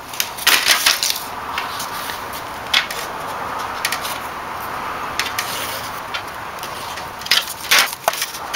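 Thin aluminium flashing and a cardboard template being handled: sharp crinkles and clatters of the flexible sheet metal shifting, loudest about half a second in and again near the end, with a steady scratching between them as a pen traces along the template edge.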